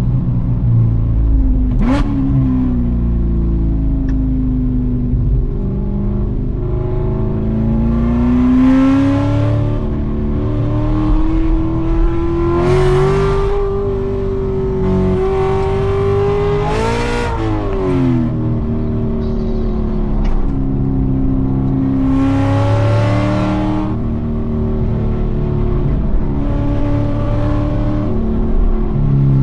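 Cammed C7 Corvette's 6.2-litre V8 with a stage 4 cam, pulled hard through the rev range. Its pitch climbs and drops several times with shifts and lifts, and falls sharply about seventeen seconds in.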